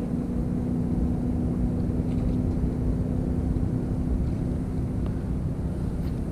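Steady low rumble of wind and water noise with the steady hum of a boat motor running, the hum fading out about five seconds in.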